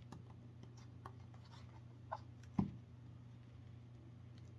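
Faint scratching and rubbing as a stitching awl's needle and thread are worked through pre-drilled stitch holes in a leather knife sheath, with a couple of small knocks about two and a half seconds in.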